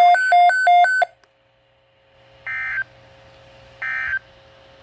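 Rapid alternating two-pitch beeping that stops about a second in. After a brief pause come two short, identical bursts of buzzy data tones about a second and a half apart: the SAME digital end-of-message code that closes a NOAA Weather Radio alert broadcast.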